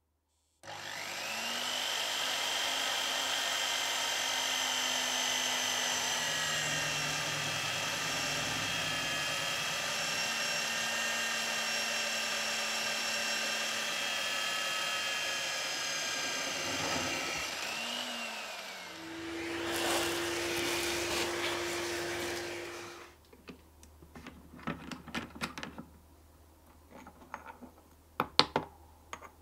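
Drill press starting with a short rising whine and drilling through a steel plate with a resharpened twist drill bit, running steadily with cutting noise; its pitch shifts near the end of the cut and it cuts off sharply about 23 seconds in. Then light metallic clicks and rattles as the drilled plate and chips are handled.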